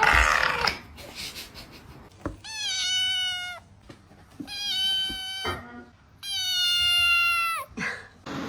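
Cat meowing: three long, drawn-out meows, each dipping slightly in pitch and then holding steady, the last the longest, after a short harsh sound at the start.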